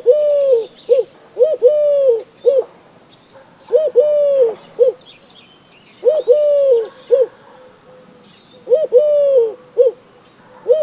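Eurasian collared dove cooing its three-note song, a short note, a long held note and a short note, repeated five times about every two to two and a half seconds.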